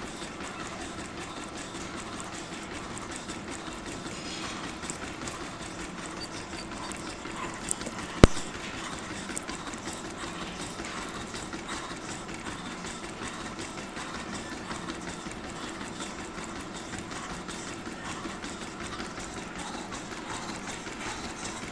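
A treadmill running steadily under a runner, its motor and belt going with the footfalls, and one sharp click about eight seconds in.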